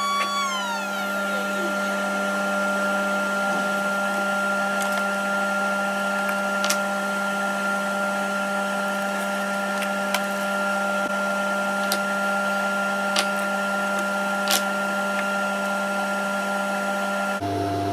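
CNC router running steadily with a constant motor hum and whine. A higher whine falls in pitch and dies away over the first two seconds, and a few sharp ticks are scattered through.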